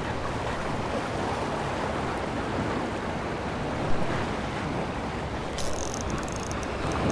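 Sea water washing against the rocks of a jetty, with wind on the microphone. A run of fine ticks sets in near the end.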